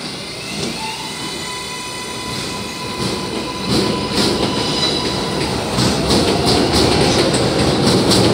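R188 subway train pulling away from a station. A whine rises in pitch as the train starts off, then the wheels clack faster and louder over the rail joints as it picks up speed.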